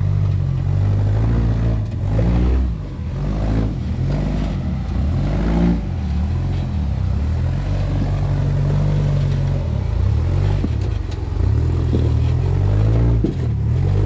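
Rock-crawling buggy's engine running at low speed, its pitch rising and falling again and again as the throttle is worked over the rocks.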